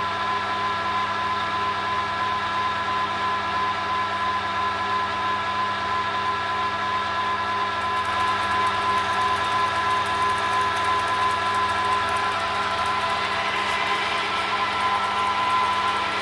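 Metal lathe running steadily, its headstock gearing giving a constant whine over the spinning chuck and workpiece. It is switched off at the very end and the sound falls away.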